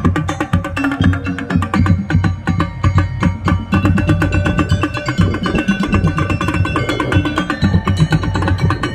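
Non-brass marching drum band playing: rapid, dense drum strokes under a melody of held pitched notes.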